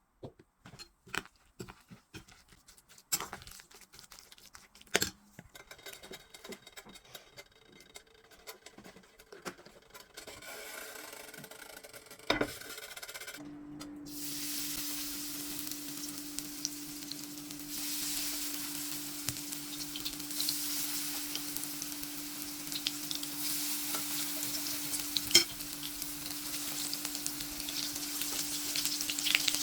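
Sharp knocks and clicks of kitchen utensils against a pan or dish. About 13 seconds in, food starts sizzling as it fries in a pan, a steady sizzle with an occasional tap of the utensil.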